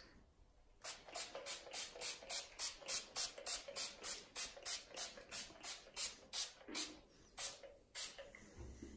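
Pump-mist spray bottle of tanning water being pumped over and over, giving about twenty short hissing sprays at roughly three a second, with a few slower sprays near the end.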